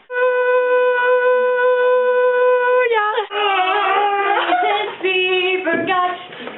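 A girl singing loudly: one high note held steady for about three seconds, then a quick, wavering run of changing notes.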